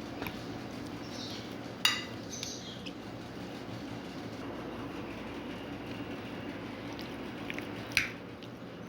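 Chicken being mixed by hand into a yogurt and spice marinade: steady soft, wet rustling, with two short sharp clicks, one about two seconds in and one near the end.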